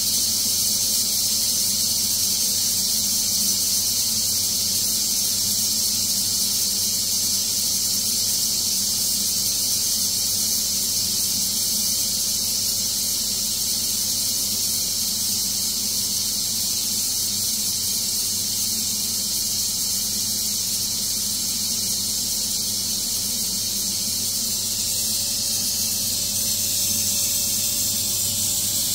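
Ninja Foodi MAX multi-cooker releasing pressure: a steady, high hiss of steam venting through its release valve.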